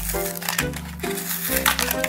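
Background music, over the paper-and-cardboard backing and plastic blister of a Hot Wheels card being torn and crinkled open by hand, a package that is hard to open.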